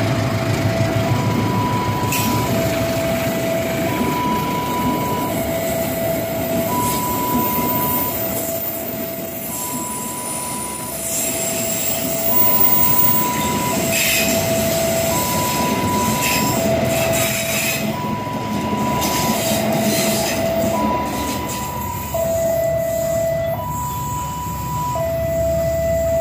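Stainless-steel passenger coaches of a train rolling past close by, with steady wheel rumble and occasional knocks on the rails. Over it a level-crossing warning alarm sounds a steady two-tone high-low alternation, each tone held about a second.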